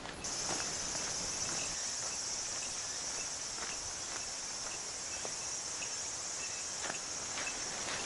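A steady, high-pitched chorus of singing insects that starts just after the beginning. Under it are faint footsteps on a dirt track, about one a second.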